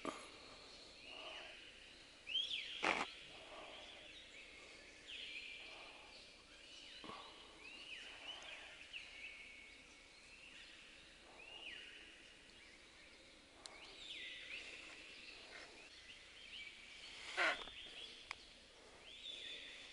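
Birds calling over and over, short high calls every second or two. Two sudden knocks, about three seconds in and near the end, are the loudest sounds.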